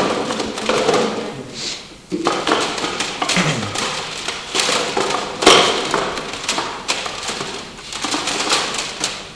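Irregular clattering, tapping and rustling of album cases being handled and sorted through, with sharp knocks throughout.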